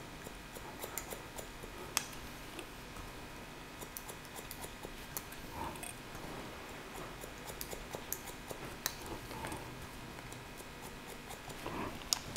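Barber's scissors point-cutting hair: faint, scattered snips and clicks, with a few sharper ones about two seconds in, near nine seconds and near the end.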